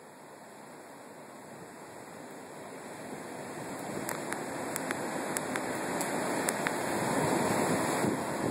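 Rough surf breaking on a beach mixed with wind rushing over the phone's microphone, a steady rushing noise that grows louder, with a few faint clicks midway.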